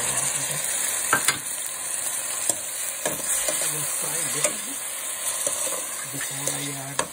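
Peeled tomatoes, grated ginger and garlic sizzling in hot oil with fried onion and eggplant in a steel pot, stirred with a spoon that scrapes and knocks against the pot now and then.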